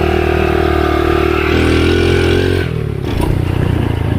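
Underbone motorcycle engine running at raised revs, stepping up slightly about one and a half seconds in, then dropping to a lower, pulsing beat a little past halfway.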